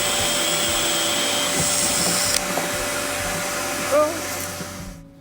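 Electric motor tool running steadily with a high hiss and a constant hum, winding down and stopping near the end.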